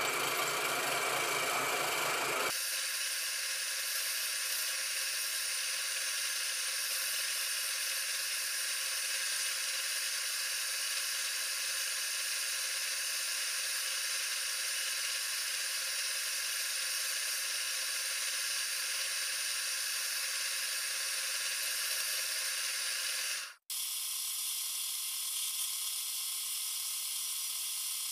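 Wood lathe running with a chisel cutting into the spinning wooden blank: a steady whir with a hiss of shaving wood. It cuts out for an instant about three-quarters of the way through, then carries on.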